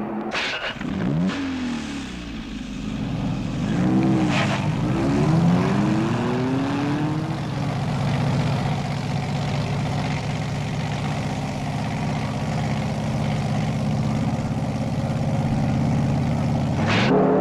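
Car engine sound effect: the engine revs up and down a few times, then settles into running at a steady speed. It cuts off abruptly near the end.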